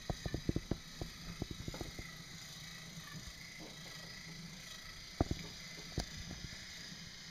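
Light clicks and knocks of a toy train being pushed along by hand: a quick cluster in the first two seconds, then a couple of single knocks later on.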